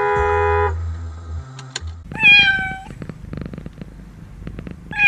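A cat meowing: one drawn-out meow that falls slightly in pitch about two seconds in, and another beginning right at the end. Before that, a steady car horn blast that cuts off under a second in.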